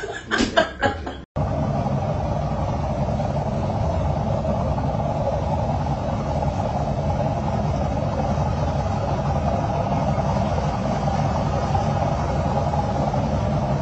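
A boat's motor running steadily, a constant low drone that starts abruptly about a second in.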